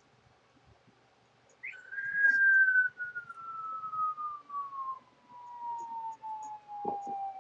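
Cartoon falling-whistle sound effect: after a near-silent start, a single whistle tone begins about two seconds in and glides slowly downward in pitch, still falling at the end.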